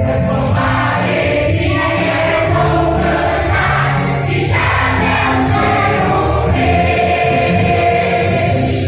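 Church choir singing a Christmas cantata song with instrumental accompaniment, steady and loud throughout.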